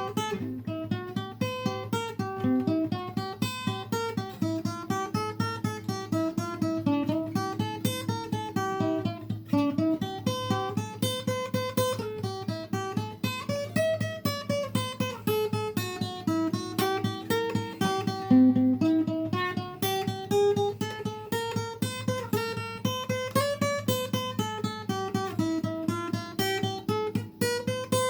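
Acoustic guitar played in a steady, even stream of plucked notes over a low drone, an instrumental passage with no singing.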